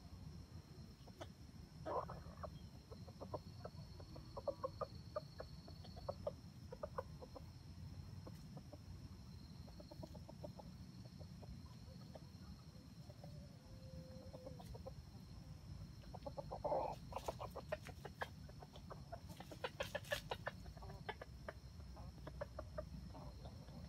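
Wild junglefowl (jungle chickens) clucking faintly in runs of short, quick clucks. Two louder calls stand out, about two seconds in and near seventeen seconds.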